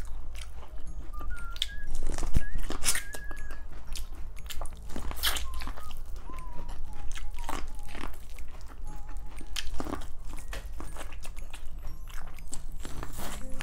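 Biting and chewing boiled corn on the cob close to a microphone: repeated crisp bites and chewing of the kernels. Faint short, wavering high whines come and go now and then.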